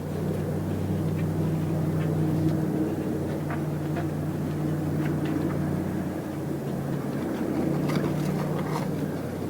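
A motor running with a steady low hum, with faint scattered ticks over it.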